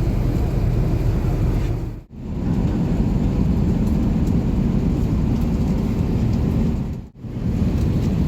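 Steady low rumbling cabin noise of an Airbus A380 in flight. It drops out briefly twice, about two seconds in and again about seven seconds in.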